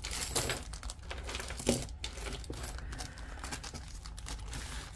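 Metal costume jewelry clinking and small plastic baggies crinkling as they are handled, in irregular small clicks with a sharper one about a second and a half in.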